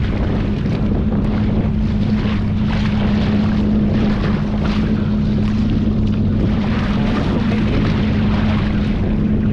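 Boat engine idling with a steady hum, under gusty wind buffeting the microphone.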